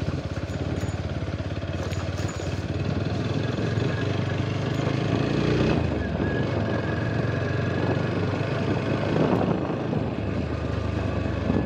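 Motorcycle engine running as the bike rides along a rough, wet road, picking up speed partway through.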